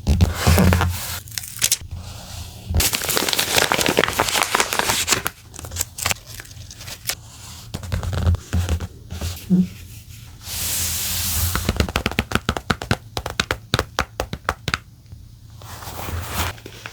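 Paper and stickers handled close to the microphone: peeling, tearing and crinkling, with many small taps and clicks. There is a longer rustling stretch about three seconds in and a smooth rasping stroke about ten seconds in.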